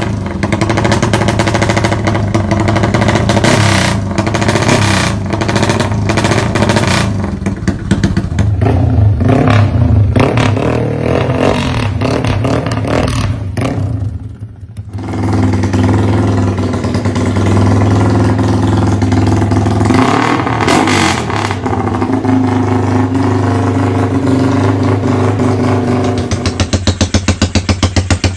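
Yamaha LC135 motorcycle's tuned 135 cc single-cylinder four-stroke engine running loud at high revs, its pitch rising and falling. It dips briefly about halfway through, then picks up again, and near the end the note breaks into a rapid stutter.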